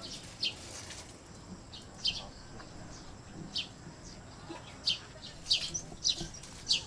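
A series of short, high-pitched animal chirps, about seven in all, coming closer together near the end.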